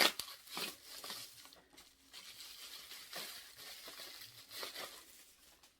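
Packaging crinkling and rustling in several short bouts as a small boxed item is handled and unwrapped, with a sharp click at the start.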